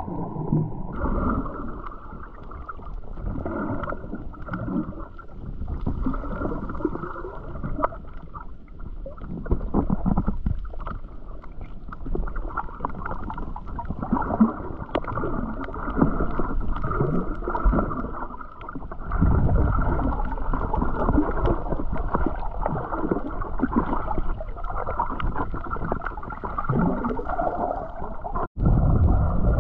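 Muffled underwater sound picked up by a camera held below the surface: water sloshing with irregular gurgling and a low rumble. The sound cuts out for an instant near the end.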